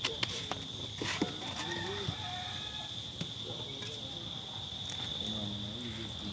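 Steady high-pitched drone of insects, with a few light clicks and knocks near the start and about a second in.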